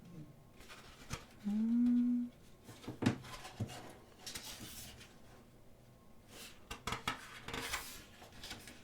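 Thick photobook pages being turned and handled, with paper rustles and light taps throughout and a longer stretch of rustling near the end. About a second and a half in, a short low hummed 'mm' is the loudest sound.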